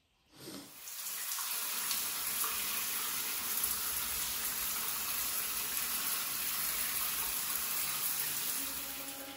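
Shower head spraying water onto a tiled shower wall, coming on about half a second in and then running steadily as a dense hiss.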